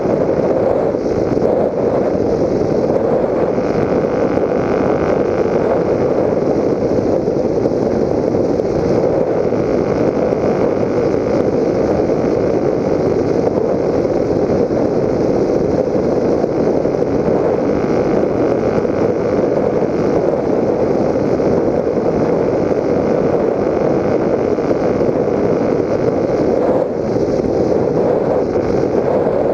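Steady in-flight noise heard from on board a Raptor 1600 FPV model plane: its electric motor and propeller running evenly, mixed with air rushing past.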